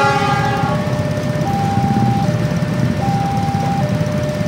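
Railway level-crossing warning alarm sounding a two-tone signal, a higher and a lower tone alternating about every 0.8 s, over the low rumble of a passenger train passing. A brief horn sounds right at the start.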